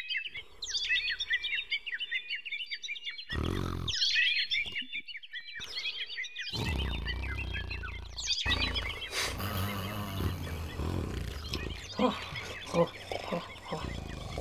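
Small birds chirping rapidly and continuously, with a couple of brief breaks, stopping about eight seconds in. A low steady hum and a few short low sounds follow.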